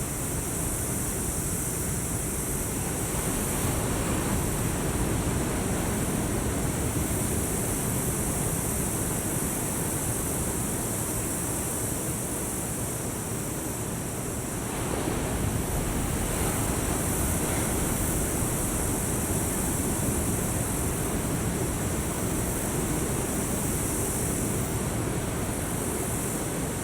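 Ocean surf washing steadily onto the shore, swelling louder a few seconds in and again about halfway through, with a steady high hiss above it.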